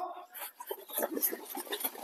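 Footsteps of a group of runners pushing off from a standing start and running on a dirt track: a quiet patter of many quick, irregular steps that picks up about half a second in.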